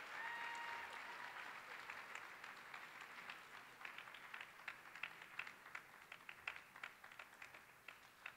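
Audience applauding. The clapping thins out to scattered single claps and fades toward the end.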